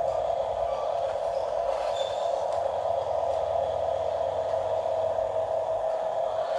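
Steady whine of a radio-controlled model vehicle's small electric motor and gearbox, holding one even pitch throughout.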